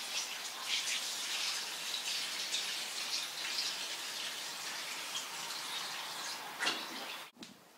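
Water pouring into a slow cooker crock over fish heads and vegetables, a steady splashing that cuts off abruptly near the end.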